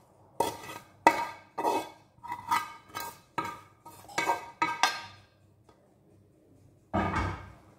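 Metal utensil knocking and scraping against a black frying pan while sautéed chicken is emptied out of it. About eleven sharp, ringing taps come in quick succession over the first five seconds, then one more near the end.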